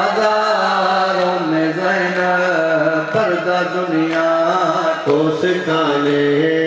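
A man's voice chanting a Shia devotional recitation into a microphone, in long held notes that step up and down in pitch.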